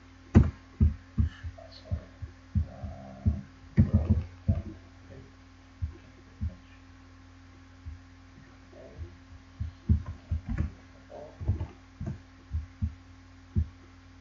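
Irregular dull thumps and clicks from a computer mouse and keyboard, picked up by a desk microphone, over a steady electrical hum.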